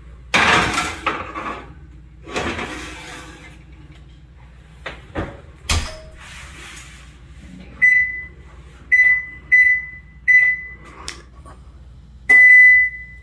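A metal baking sheet scrapes and clatters onto an oven rack and is pushed in, then the oven door shuts with a couple of knocks. Next the electric range's control panel beeps as the cook timer is keyed in: four short beeps at one steady pitch, then a longer beep near the end.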